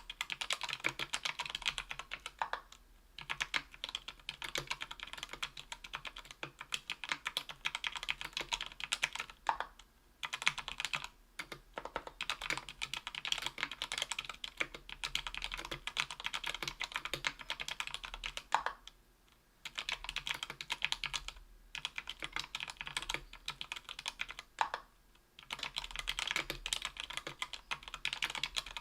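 Fast typing on a mechanical keyboard with lubed JWK Rara 62g tactile switches in an aluminium Tofu 60% case and plate: a dense run of key-press clacks with a few brief pauses.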